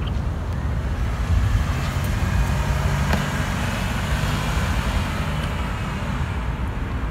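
Road traffic: a car passes by, its noise swelling through the middle and fading again, over a constant low rumble.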